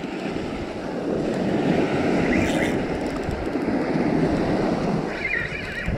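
Surf washing up the beach in a steady rush that swells and eases, with wind buffeting the microphone.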